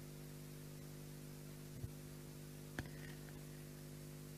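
Faint steady electrical mains hum and hiss from a public-address system. Two short soft knocks about two seconds in and a second later.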